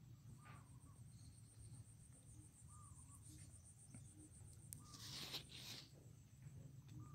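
Near silence outdoors: a faint, evenly pulsing high insect trill, a few faint short chirps, and a brief rustle about five seconds in.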